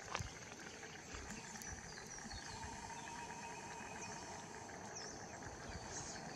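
Faint outdoor bush ambience: a steady high insect drone with a few short bird chirps about four to five seconds in, and a soft click just at the start.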